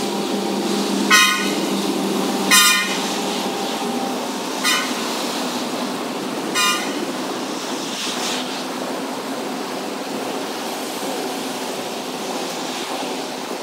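A horn gives four short toots, the first two a little longer than the last two, over a steady engine drone.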